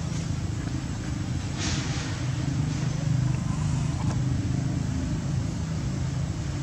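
Steady low mechanical hum, with a short hiss about one and a half seconds in and a faint click about four seconds in.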